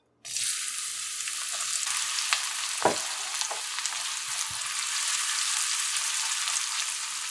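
Sliced onions hitting hot oil in a karahi: a steady sizzle starts suddenly about a quarter second in and keeps going as they are stirred with a spatula, with a few light ticks.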